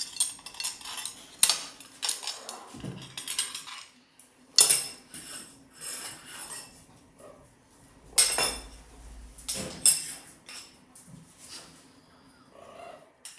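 Metal spoon clinking and rattling against a dish in irregular strikes, each with a brief ring, as a parrot handles it; the strikes grow sparser near the end.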